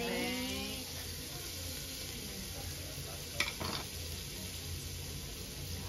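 Broth poured from a pot onto a hot cast-iron grill plate of beef short rib and potato noodles, with a rising pouring sound in the first second, then steady sizzling as the broth cooks down around the meat. A single sharp click about three and a half seconds in.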